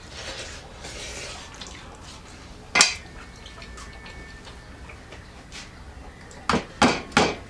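A cooked bone knocked against a metal plate to make the marrow drop out: one sharp clack about three seconds in, then a quick run of sharp knocks near the end.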